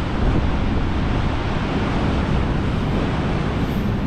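Strong wind buffeting the microphone over the steady noise of heavy surf breaking below the cliffs.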